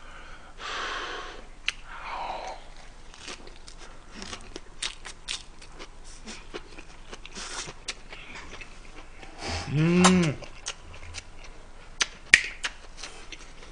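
A man chewing a mouthful of lettuce wrap filled with beef bulgogi and rice, with many short sharp mouth clicks. About ten seconds in there is a brief hummed sound from his voice whose pitch rises and then falls.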